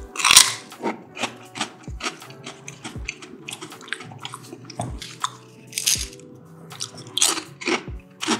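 Close-up crunching as a thin crisp cracker is bitten and chewed, a run of sharp crunches with the loudest just after the start, over background music with a soft beat about once a second.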